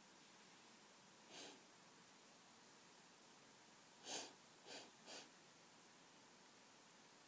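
Near-silent hiss of room tone broken by four short breath sounds from a person: one about a second in, then three close together about four to five seconds in, the first of those the loudest.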